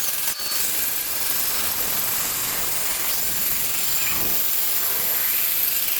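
A steady, even hiss with no clear pitch or rhythm, dipping briefly just after the start.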